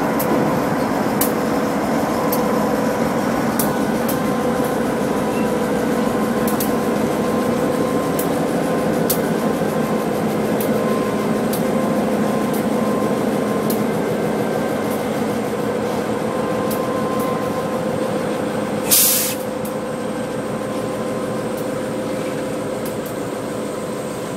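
A freight train's cars rolling slowly past, a covered hopper and rack cars loaded with stick rail: a steady rumble of wheels on rail with scattered sharp clicks. A short, sharp hiss breaks in about three-quarters of the way through.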